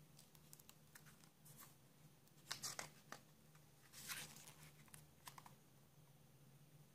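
Pages of a hardcover book being turned by hand: faint paper rustles and swishes, with two louder page flips about two and a half and four seconds in.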